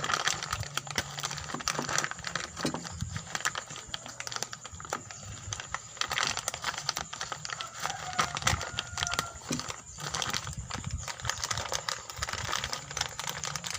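Irregular clicks, light rattles and plastic crinkling as a bicycle hub and its quick-release skewer are handled and taken from their packaging.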